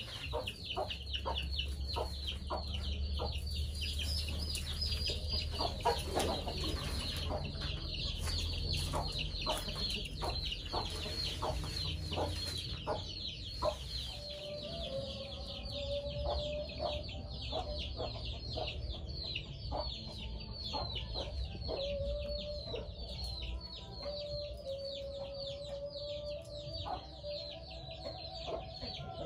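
Chickens clucking over a dense, continuous chatter of rapid high chirps, with a longer drawn-out call repeating from about halfway on.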